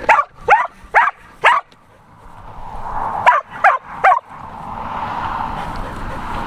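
Australian Shepherd barking: four quick, sharp, high-pitched barks, then three more about two seconds later.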